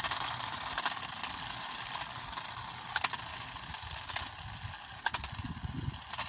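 Small electric remote-control car running on pavement: a steady motor whine and tyre hiss, with a few sharp clicks along the way.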